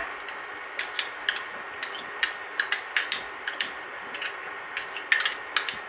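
A metal spoon clinking and tapping against a cooking pot in quick, irregular knocks, about two to three a second, while fresh cream is added to a simmering curry.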